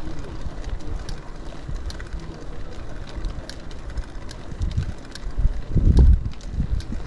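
Wind buffeting the microphone of a camera on a moving bicycle, a steady low rumble with scattered light ticks and rattles from the bike rolling over brick paving. A louder gust hits the microphone about six seconds in.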